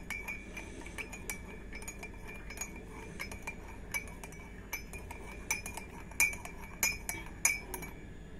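A metal teaspoon stirring in a ceramic mug of tea, clinking against the inside again and again with a light ring, dissolving sugar stirred into it. The clinking stops just before the end.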